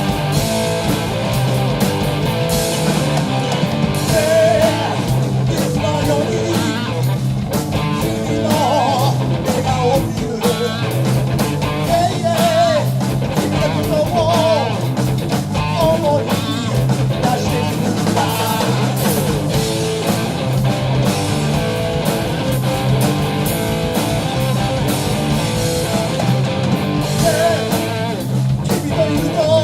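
A rock band playing live, with electric guitars over a drum kit keeping a steady beat.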